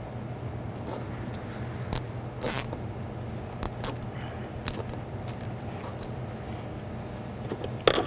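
Nylon zip tie being wrapped and threaded around a bundle of wiring harness wires: scattered small clicks and scrapes of plastic and wire handling, over a steady low hum.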